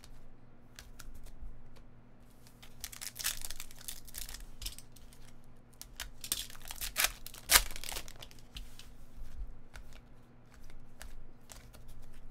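Foil trading-card pack wrapper being cut and torn open, crinkling in bursts of short sharp tears and rustles, with one loud crack of the foil a little past halfway through.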